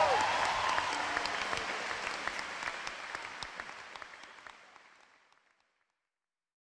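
Audience applauding, with a brief falling vocal note at the very start; the applause fades out steadily to silence about five seconds in.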